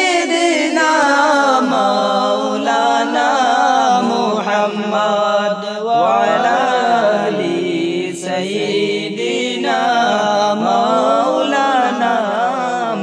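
Unaccompanied devotional chanting of a Bangla durood sharif, a salawat of blessings on the Prophet Muhammad. A voice sings long, wavering melodic lines without instruments.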